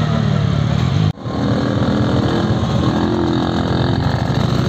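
Motorcycle engines running at low speed for about a second, then an abrupt break in the sound. After it, a small scooter engine runs slowly close by and rises in pitch near the end.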